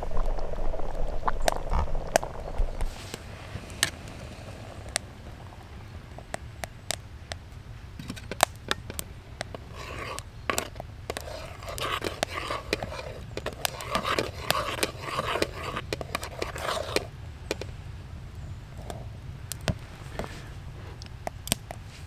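A spoon scraping and knocking against a metal camping pot while stirring runny oatmeal porridge that is being boiled down to thicken, with irregular sharp clicks throughout.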